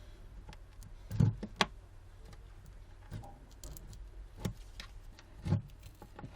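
Scattered sharp clicks and taps of a pry tool working between a Samsung Galaxy Note 10.1's digitizer glass and its frame as the adhesive is cut, the loudest a little after a second in and again near the end, over a faint steady low hum.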